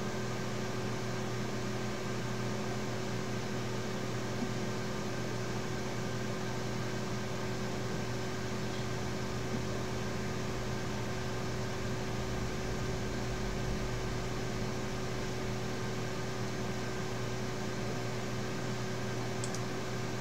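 Steady fan and electrical hum: an even hiss with several faint steady tones underneath, unchanging throughout. A couple of faint clicks come near the end.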